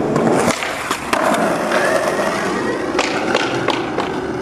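Skateboard wheels rolling on concrete, with a string of sharp board clacks and knocks on and off the ledge.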